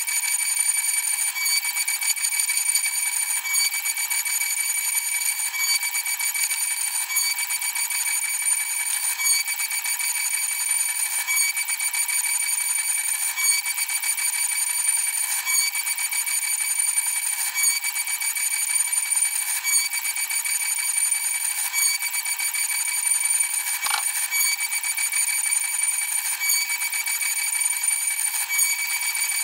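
6040Z CNC router's spindle and end mill cutting aluminium: a steady high-pitched whine with evenly spaced overtones, swelling slightly about every two seconds.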